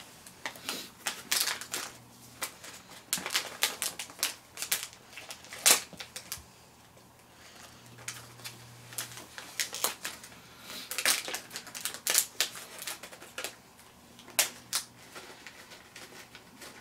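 Crinkling and crackling of a small plastic snack wrapper being handled and torn open: many scattered sharp crackles, with a quieter lull about halfway through.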